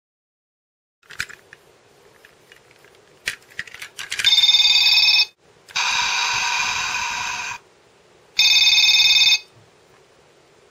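Sound chip of a Plarail N700-series Shinkansen toy beeping out three short bursts of steady electronic tones, after a few clicks from the plastic toy being handled.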